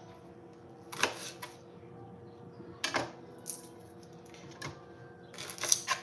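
Kitchen knife chopping a shallot on a cutting board: a few irregular sharp taps, with a quicker run of chops near the end.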